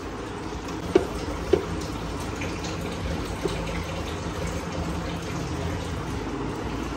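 Wet handling of raw chicken pieces being rubbed with salt in a large pot, with a few short clicks and a steady background hiss.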